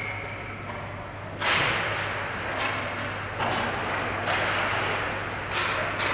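Ice hockey play just after a faceoff: skate blades scraping the ice and hockey sticks knocking against the puck and each other. There are several sudden scrapes and knocks about a second apart, each trailing off in the rink's echo.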